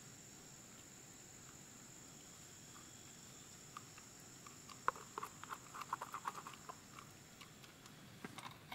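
Chopsticks scraping and tapping against a small stainless steel pot as curry is emptied into a stainless steel bowl: a run of quick light clicks in the middle and a few more near the end, over a faint steady high hiss.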